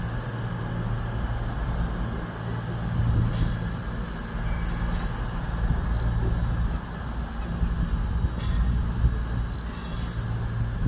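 A TransPennine Express passenger train approaching slowly on a curve, with a steady low hum and several brief high squeals.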